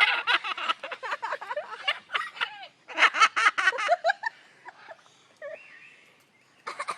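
A parrot imitating human laughter in two quick runs of short laughing syllables, a longer one and then a shorter one starting about three seconds in, trailing off into a few soft calls.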